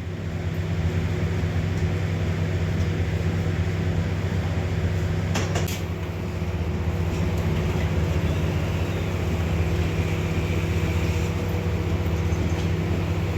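Steady mechanical hum of milking equipment running during milking, with a couple of short knocks about five and a half seconds in.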